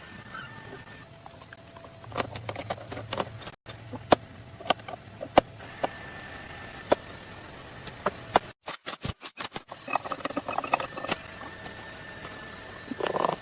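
Repeated sharp clicks and knocks, some close together, over a faint low hum, broken by several abrupt cuts.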